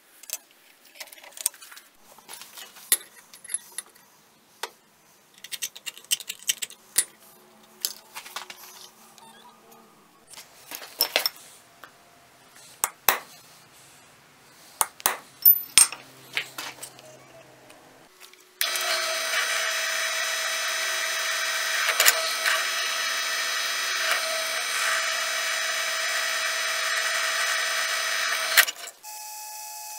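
Scattered light scrapes and sharp metallic taps as a mild-steel knife guard blank is marked out and center-punched. About two-thirds of the way in, a drill press starts and runs steadily for about ten seconds as it drills through the steel, then cuts off suddenly.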